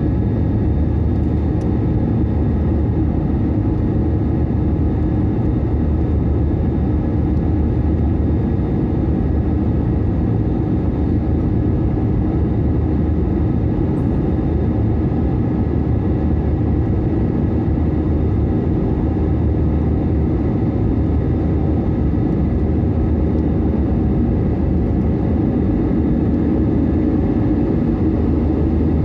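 Airbus A320 cabin noise during the climb after takeoff: a steady, loud drone of the jet engines and rushing air, heaviest in the low range, with a few faint steady hums over it.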